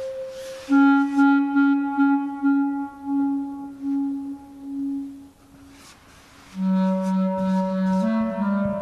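Clarinet playing improvised solo music: one low note tongued over and over in short pulses for about five seconds, a short pause, then a lower long-held note that steps up near the end.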